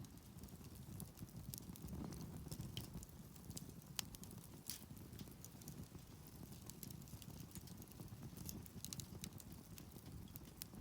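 Wood campfire crackling faintly, with scattered small snaps and pops and one sharper snap about four seconds in, over a low steady rumble.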